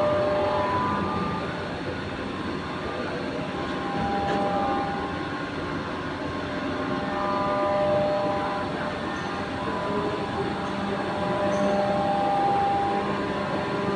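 Machine-shop machinery running steadily: a dense mechanical drone with several overlapping whines that shift in pitch and come and go.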